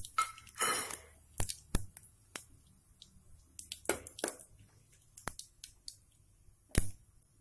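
Whole spices (bay leaf, black cardamom, cumin seeds) crackling as they temper in hot oil in a metal pot: scattered sharp crackles and clicks. A steel spoon knocks against the pot near the end, the loudest click.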